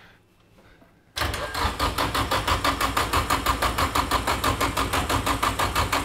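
Starter motor cranking a Nissan SR20DET 2-litre turbo four-cylinder, starting about a second in with a fast, even run of compression pulses. The engine does not catch: it has not been run in months and has unresolved wiring issues.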